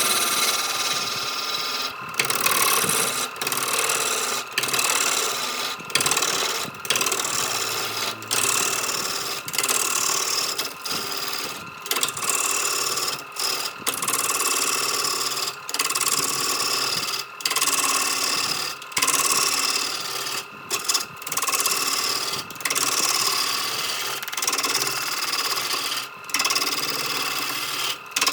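Power tool running on wood: a steady motor whine under a rasping hiss that repeats in strokes about every second or so, each cut short by a brief drop-out.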